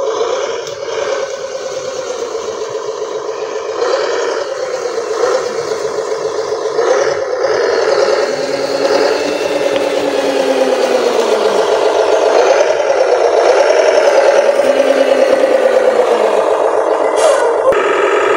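Radio-controlled model truck driving: a steady motor whine that wavers in pitch with the throttle, with rattling and scraping. The sound changes near the end.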